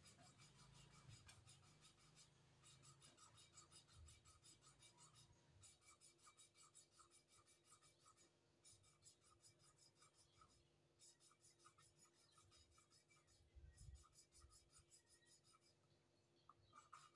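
A valve of a Mitsubishi Minicab engine being lapped by hand against its seat in the cylinder head: a faint, rhythmic gritty rubbing as it is twisted back and forth, in runs broken by short pauses.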